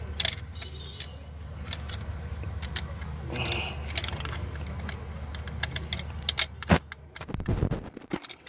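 Metallic clicking and rattling of a rust-stuck transmission range sensor (neutral safety switch) being wiggled up and down and pressed by hand to work it loose, with a few louder knocks near the end over a steady low hum.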